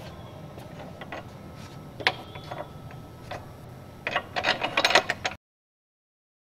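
Metal clicks and clinks from a bolt being fitted through a power weeder's handle bracket, with a sharper knock about two seconds in. About four seconds in comes a quick run of clicks as the nut is worked on and tightened, and then the sound cuts off abruptly.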